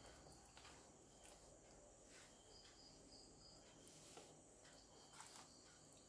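Near silence: a faint hiss with a few faint, scattered clicks from a knife cutting raw chicken on a wooden cutting board.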